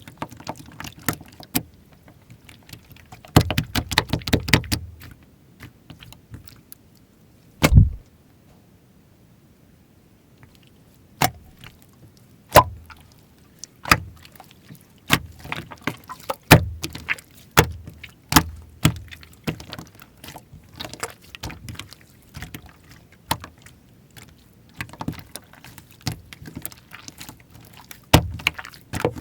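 Slime being squeezed, folded and pressed by hand, giving sharp, irregular clicks and pops as air pockets burst. There is a dense burst of crackling early on, a heavier squelch, then a short quiet stretch before the popping resumes at about one or two a second.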